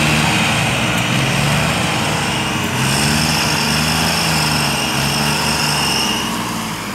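Diesel farm tractor engines (New Holland and Massey Ferguson) working hard under heavy load while hauling a high-loaded sugarcane trolley, their pitch shifting as they pull. A thin high whine joins about three seconds in and fades near the end.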